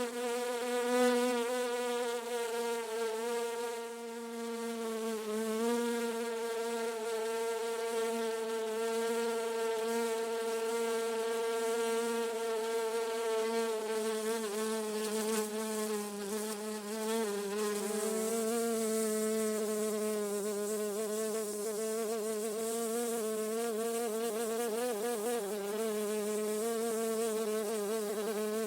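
A bee buzzing continuously: one unbroken buzz whose pitch wavers slightly up and down.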